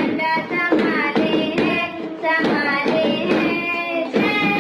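A voice singing a Hindi song melody, held sustained notes sliding in pitch, over a steady rhythmic beat of hand taps.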